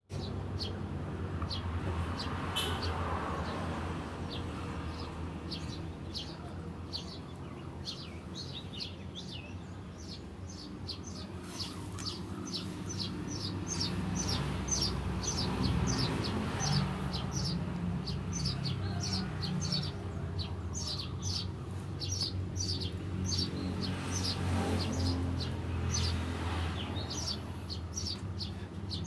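Eurasian tree sparrows chirping in a fast, unbroken stream of short high chirps, the 'ngriwik' chatter, busiest in the middle stretch. A low steady hum runs underneath.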